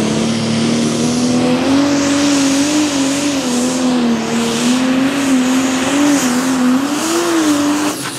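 Pro Stock pulling tractor's turbocharged diesel engine at full throttle under load, dragging the sled, its revs wavering up and down. The engine cuts back just before the end.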